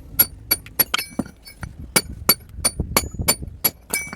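Hammer striking a steel chisel to chip and rough-shape granite, a steady run of sharp, ringing metal-on-stone blows about three a second.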